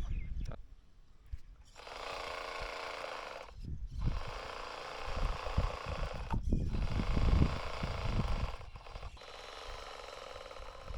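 Small electric motors of a 3D-printed hydraulic excavator model whining as it works, starting and stopping about four times, with irregular low rumbling underneath.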